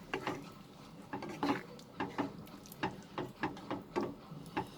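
A spoon or spatula stirring a thick gravy in a cooking pan, giving irregular scrapes and knocks against the pan a couple of times a second.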